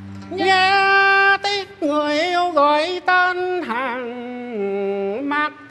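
A man singing a slow, melismatic cải lương-style phrase with little or no accompaniment. He holds long notes with a wide, wavering vibrato, in a few phrases with short breaths between them, and the melody steps down to a lower note before lifting again near the end.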